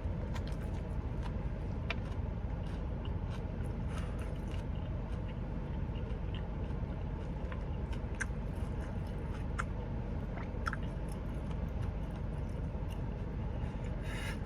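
Close-up chewing of food with small, scattered mouth clicks, over a steady low hum of an air conditioner.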